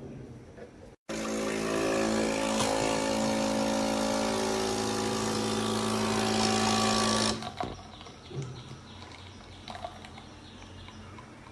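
Nespresso capsule coffee machine brewing, its pump running with a steady loud hum and hiss for about six seconds before stopping; a few faint clicks follow.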